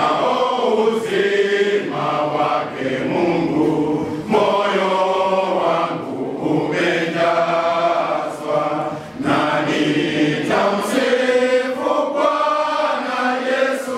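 Men's choir singing a Swahili hymn together in full voice, in phrases with short breaks between them.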